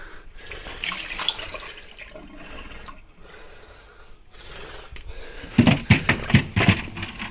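Watery hissing and trickling as a handheld steamer melts ice in a fridge freezer, then a quick run of knocks and clatter starting about five and a half seconds in.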